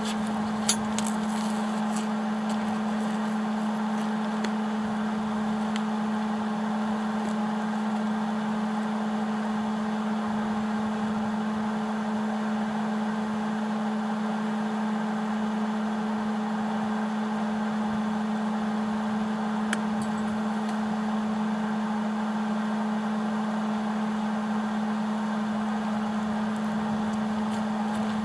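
An electric welder at work on the harrow's steel: a steady hum with a continuous hiss and a few faint clicks, the hiss easing off at the very end as the weld stops.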